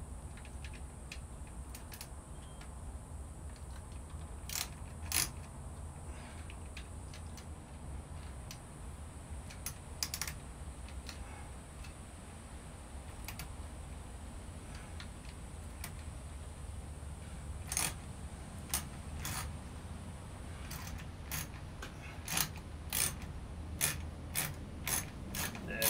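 Hand tool clicking and ticking as a bolt is driven into a chainsaw's plastic housing, the clicks scattered at first and coming quickly near the end as the bolt tightens. A steady low hum runs underneath.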